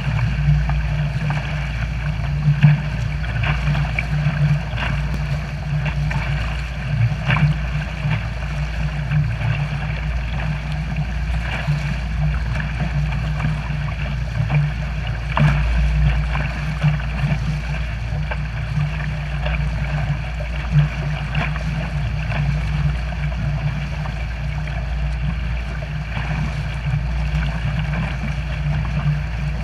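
Wake water churning and splashing close by, with frequent short splashes, over the steady drone of a 90 hp outboard motor pushing a pontoon boat.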